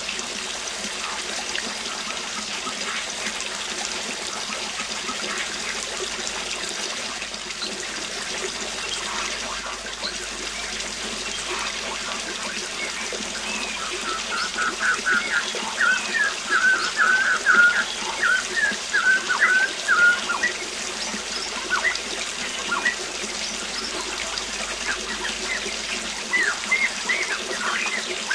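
Steady rush of falling water from a waterfall, with birds calling over it: a run of quick chirps about halfway through and a few more short calls near the end.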